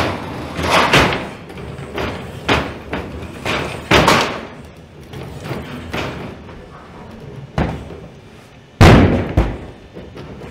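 Boston Dynamics Atlas humanoid robot's feet thudding on plywood planks and scaffolding: a string of separate knocks, with one heavy thud about nine seconds in that is the loudest.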